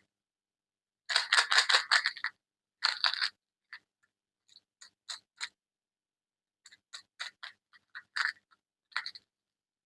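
Close-up unpacking noises: about a second of crinkling and rustling packaging, a second shorter burst, then a run of small sharp clicks and taps.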